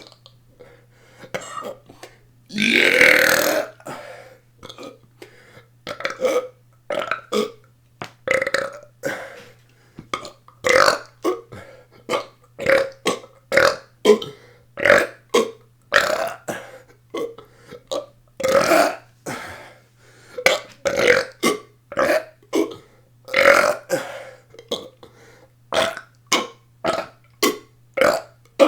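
A person belching deliberately over and over. There is one long burp about three seconds in, then a steady run of short burps, roughly one or two a second.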